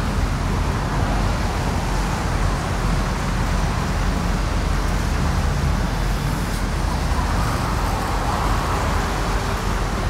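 Steady outdoor background noise: a continuous low rumble under an even hiss, with no distinct events.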